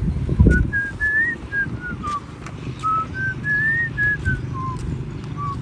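A whistled tune of clear single notes that climb and then fall back, played as two similar phrases, over a low rumble of handling noise with a thump about half a second in.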